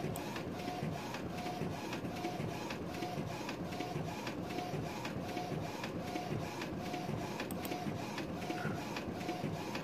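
Sawgrass Virtuoso SG800 sublimation inkjet printer printing, a steady mechanical sound with a regular repeating pattern about twice a second.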